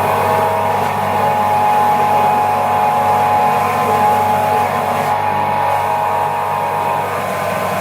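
An electric motor running steadily with a constant hum, no change in speed.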